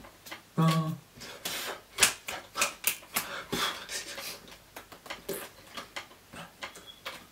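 Sign-language hand noises: quick irregular claps, taps and slaps of hands and fingers meeting each other and brushing clothing, with mouth clicks and breaths. A short voiced hum comes just after half a second in.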